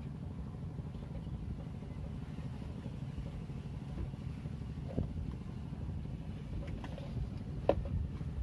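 Steady low engine rumble of a boat motor running, with a couple of light knocks about halfway through and near the end.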